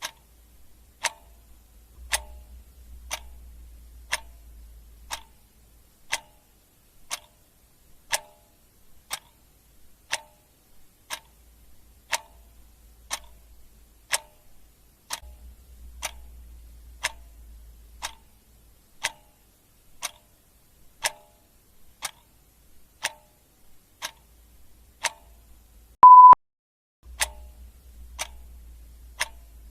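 A clock ticking steadily, about one tick a second. Near the end a single short beep sounds, louder than the ticks. A faint low rumble comes and goes underneath.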